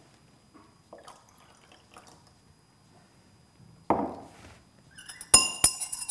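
Liquid poured faintly from a glass measuring cylinder into a glass beaker, then a knock about four seconds in as the cylinder is set down on the bench. From about five seconds in, a glass stirring rod clinks sharply against the beaker several times with a ringing tone as the solutions are stirred.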